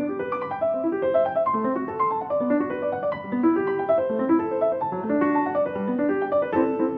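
Piano music: a steady stream of quick notes in repeating rising figures.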